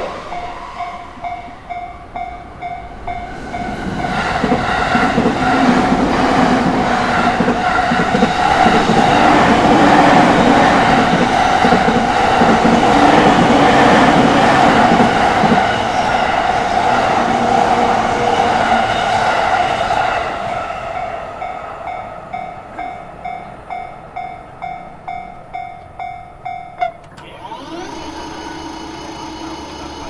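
Japanese railway level-crossing warning bell ringing in quick, even pulses while JR electric commuter trains run past, the rush and rumble of the train swelling loudest through the middle. The bell cuts off suddenly near the end as the crossing clears.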